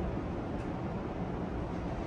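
Steady low rumble and hiss inside an E231 series commuter car standing with its doors just closed, before the train moves off.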